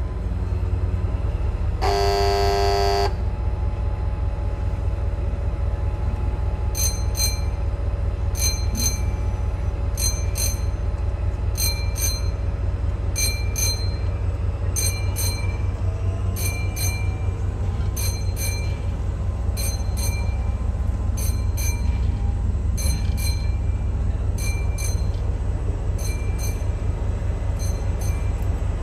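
Train running with a steady low rumble, a short blast of a train horn about two seconds in. From about seven seconds on, regular paired clicks roughly once a second: wheels crossing rail joints.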